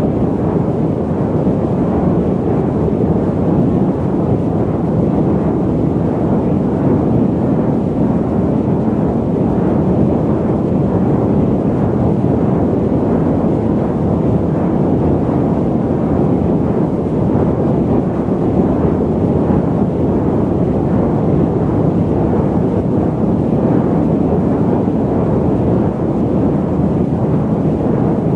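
Airliner cabin noise on a long-haul flight: a steady low rumble and rush of engine and airflow noise that holds level throughout, with no tones or breaks.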